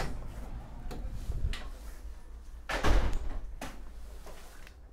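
Metal-framed glass shop door being pushed open by its handle: a click as it opens, then a louder knock about three seconds in.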